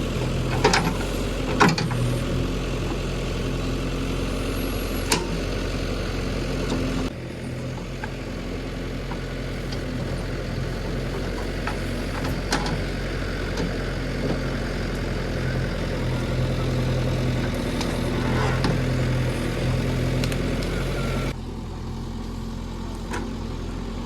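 Heavy diesel engine running steadily at low revs, with a few sharp knocks in the first few seconds. The sound drops abruptly in level about seven seconds in and again near the end.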